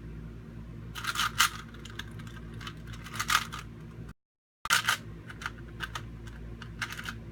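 Plastic Rubik's Cube being twisted by hand: short bursts of clicking and rattling as its layers turn, a second or two apart. Near the middle there is a brief dead gap where the recording cuts out.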